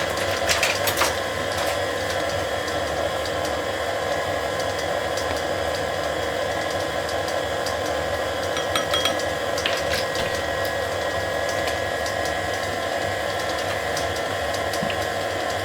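Tilt-head stand mixer running steadily at a low-to-medium speed, its motor and gearing whirring as it beats butter and sugar until creamy. A few light clicks sound about a second in and again around ten seconds in.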